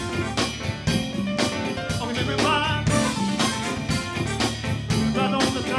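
Live R&B band playing: a drum kit keeps a steady beat under electric bass, keyboards and electric guitar.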